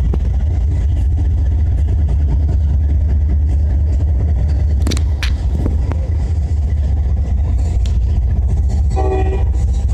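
Norfolk Southern freight train rolling past, a loud, steady low rumble of the cars on the rails, with a couple of sharp clacks about five seconds in.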